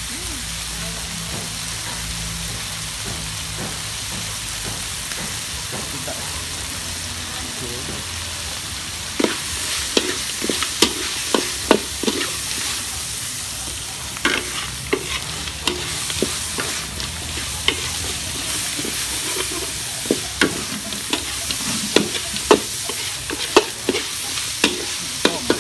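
Small crabs stir-frying in a large steel wok, sizzling steadily. From about nine seconds in, a metal spatula scrapes and clacks against the wok again and again as the crabs are tossed.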